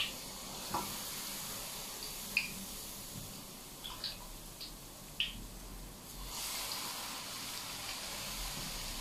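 Hot oil sizzling as it is ladled over ground chili flakes in a stainless steel bowl and stirred with chopsticks to make chili oil. A few light clinks of the utensils against the bowl come in the first half, and the sizzle grows louder about six seconds in.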